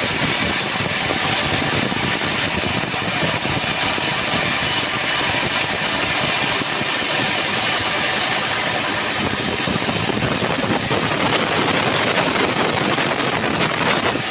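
Homemade band sawmill running steadily, its blade sawing through a trembesi (rain tree) log with a dense, even mechanical noise.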